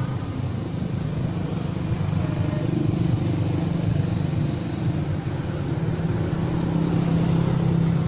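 Small motorcycle engine idling steadily, a continuous low hum.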